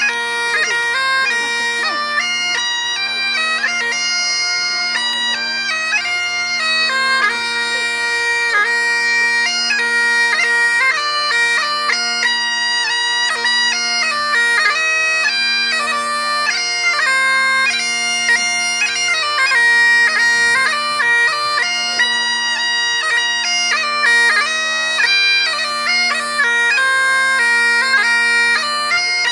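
Highland bagpipe music: a continuous ornamented tune played over steady, unbroken drones.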